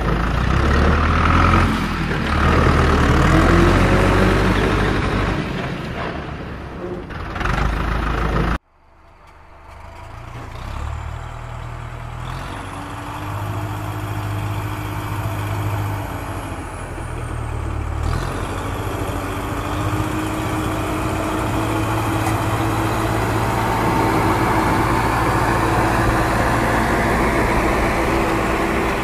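Heavy diesel vehicle engine sound running, cut off abruptly about eight and a half seconds in, then building back up and running steadily.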